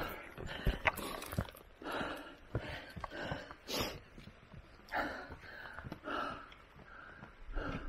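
Hard breathing from someone climbing a steep mountain path, a breath about every second, with a few footfalls on the gravel path near the start.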